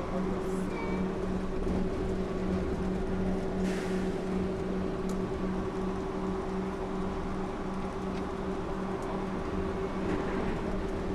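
Inside the cabin of a Yurikamome rubber-tyred automated train running between stations: a steady drive hum in two tones over a rumbling tyre noise, with a brief hiss about four seconds in.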